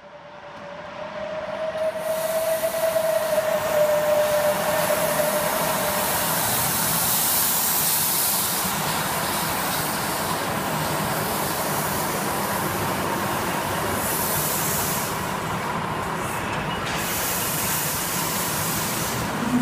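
Live-steam ride-on model locomotive, a Darjeeling-style engine, hissing steam steadily. A single held tone sounds over the first six seconds. The sound fades in at the start.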